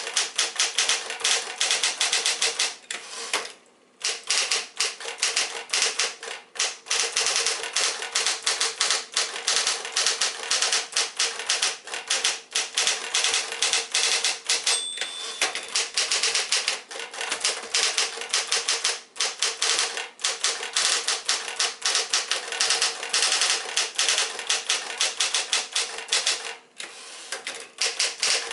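1960 Smith-Corona electric portable typewriter typed on at speed: a rapid, continuous run of keystrokes with a few short pauses, over a steady motor hum. A single short ring sounds about halfway through, the typewriter's margin bell.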